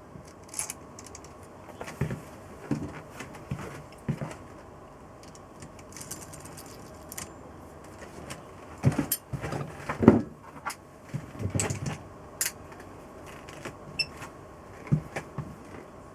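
Irregular knocks, clicks and clinks of tools and metal engine parts being handled during motorcycle engine reassembly, busiest about nine to twelve seconds in.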